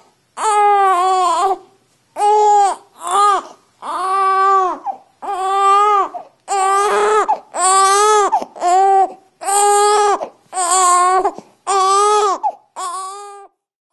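Young baby crying while lying face-down for tummy time: a string of about a dozen short, loud wails, roughly one a second, each rising and falling in pitch.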